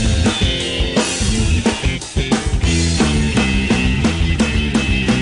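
Hard rock band playing an instrumental passage: distorted guitars, bass and a full drum kit with a driving beat, with a brief drop about two seconds in before the band comes back in.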